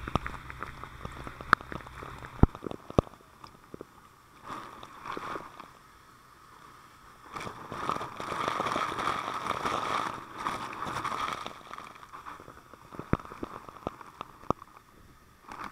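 Fire hose fog spray heard from a helmet camera: water rushing and droplets pattering and clicking on the camera housing, with a louder spell of rushing about halfway through.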